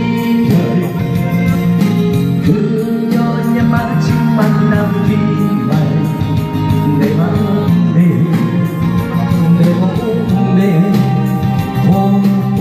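Amplified slow 7080-style Korean ballad: a man singing into a hand microphone over a backing track through a PA.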